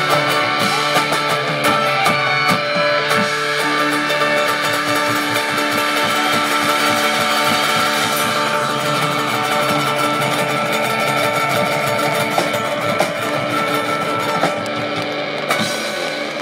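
Live rock band with guitars, drums and a horn section of saxophones and trombone playing loud, long held chords. The low end cuts off near the end as the song closes.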